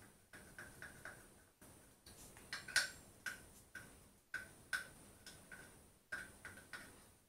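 Light metallic ticks in quick, uneven runs: a long hex key clicking in the heads of loosened motorcycle brake-disc bolts as it is spun by hand to unscrew them.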